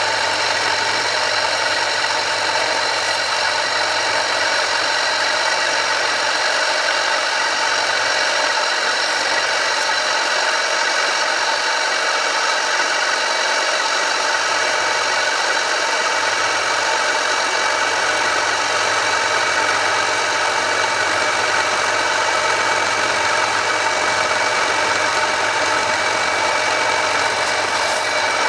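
Home-built metal lathe with a 1 hp single-phase motor running steadily while a turning tool takes a facing cut across a large metal back-plate disc. The sound is an even machine whine with several steady tones over a constant hum, unchanging throughout.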